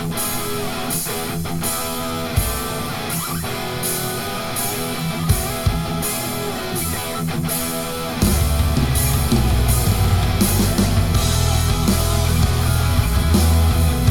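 Rock instrumental with electric guitar and a steady beat, played back through a home speaker and picked up by a microphone in the room. About eight seconds in, heavy bass and drums come in.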